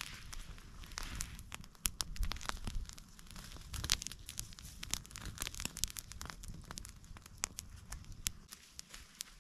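Wood campfire crackling, with many sharp, irregular snaps.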